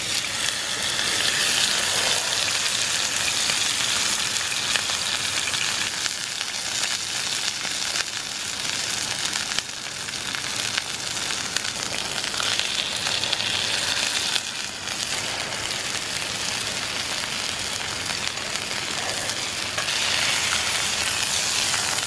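Steaks sizzling steadily as they sear in a hot cast-iron skillet.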